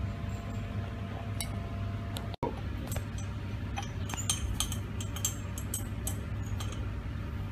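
Glass beakers clinking lightly as dry glucose and yeast are poured from one beaker into another, with many small clicks, over a steady low hum.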